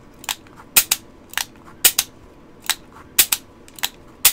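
Taurus 82 .38 Special revolver's action being cycled by hand: sharp metallic clicks of hammer and cylinder, often in close pairs, about two a second. It is the function check of the freshly reassembled action.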